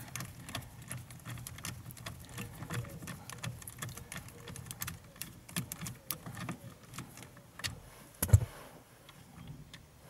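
Small metallic clicks and ticks of a screwdriver and hand working out the last of three Torx screws, with one louder knock about eight seconds in.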